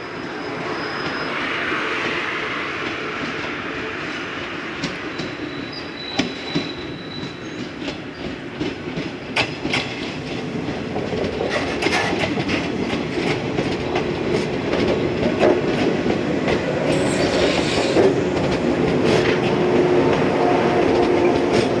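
A yellow JR West 115-series electric train approaches and passes close by. Its wheels click over the rail joints, growing louder as the cars go past, with a couple of brief thin wheel squeals and a steady hum from the running gear.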